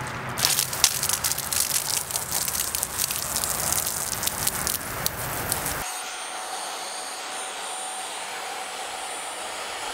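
A water stream from a hose hisses and spatters onto a rug. About six seconds in it cuts suddenly to an upright carpet cleaner's motor running with a steady whine.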